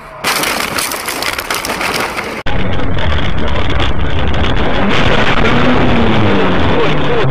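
Loud rushing noise for about two seconds as a blast of snow spray hits a car's windshield. It cuts off abruptly and gives way to background music that continues at a steady level.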